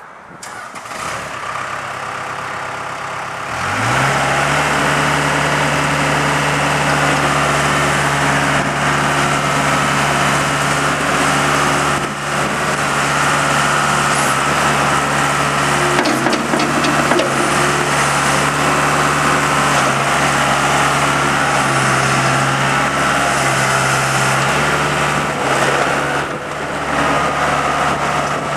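Case 40XT skid steer's diesel engine starting up about three and a half seconds in, its pitch rising as it catches, then running steadily.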